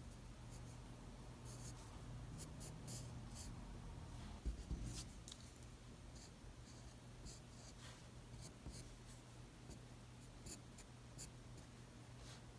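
2B graphite pencil scratching faintly across paper in short strokes, with a soft low bump about four and a half seconds in and a steady low hum underneath.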